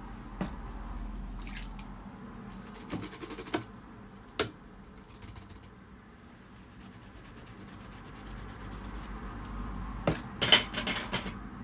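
Small hard clinks and knocks of painting tools being handled: a rapid rattle of ticks about two and a half seconds in, a single sharp knock a second later, and a louder cluster of clinks near the end.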